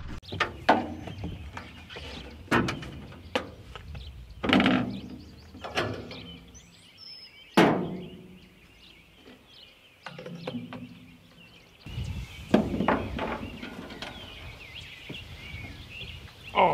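Irregular thuds and metallic clanks against the sheet-metal body and ladder of a combine harvester, a dozen or so separate knocks of varying loudness, with a quieter stretch in the middle.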